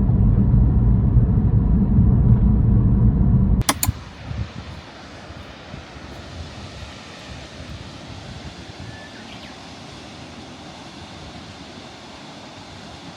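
Low, steady rumble like a vehicle in motion, which cuts off about three and a half seconds in with a click. A much quieter, even hiss follows.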